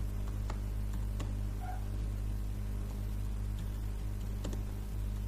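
Steady low electrical hum from the recording setup, with a few faint computer-mouse clicks.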